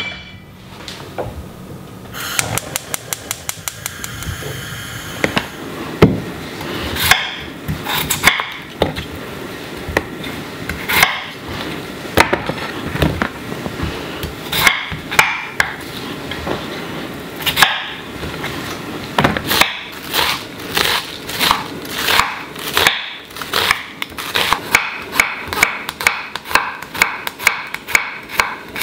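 Chef's knife cutting through raw potatoes and slicing garlic cloves on a wooden cutting board: separate knocks of the blade on the board about once a second, quickening into a fast run of slicing near the end. A few seconds in there is a quick run of light ticks.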